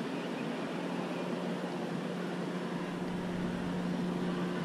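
A steady engine drone with a constant low hum over a noisy rushing background, with a deeper rumble swelling about three seconds in.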